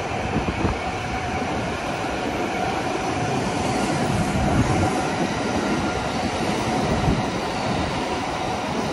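Electric commuter trains running past on the tracks: a continuous rumble of wheels on rail, with a faint steady tone running through it.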